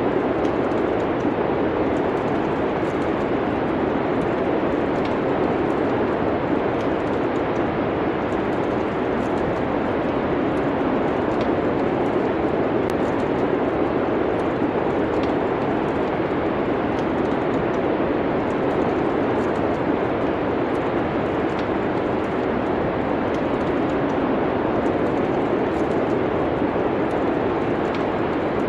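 A steady, even rush of wind-like noise, with faint crackles of a wood fire scattered irregularly through it.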